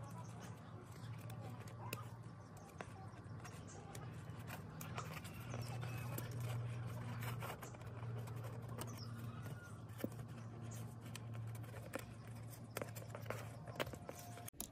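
Scattered sharp clicks, taps and light scrapes of small parts and tools being handled, over a steady low hum.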